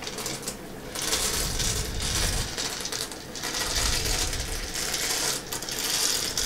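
Dry short macaroni being poured from a bag into a pan, rattling and clinking in a run of pulses roughly a second apart.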